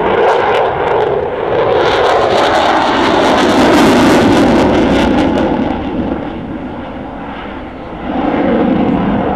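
Eurofighter Typhoon's twin EJ200 turbofans passing overhead in a display, a loud rushing jet roar with a crackle. It is loudest in the middle, eases off about two-thirds through and swells again near the end.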